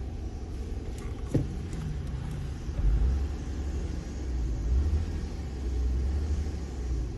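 A car engine running with a low, uneven rumble, the engine with a cylinder 2 misfire (fault code P0302). A single sharp click about a second and a half in.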